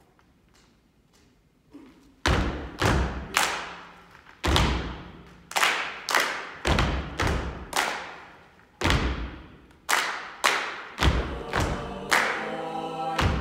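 Choir body percussion: loud unison hand claps and foot stomps on the stage floor in a repeating rhythm, starting about two seconds in after a few faint ticks. Near the end the choir starts singing over the beat.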